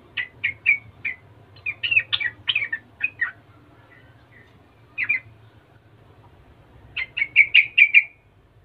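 Yellow-vented bulbul calling in chattering bursts of short, bubbly notes, ending in a quick run of about seven notes near the end.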